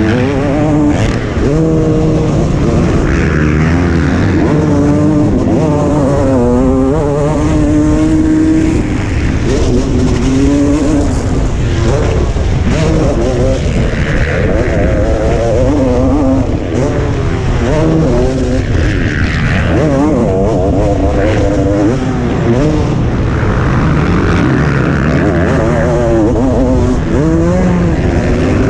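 A motocross bike's engine, heard from the rider's helmet camera, revving up hard and dropping back over and over as the rider accelerates, shifts and backs off through the corners.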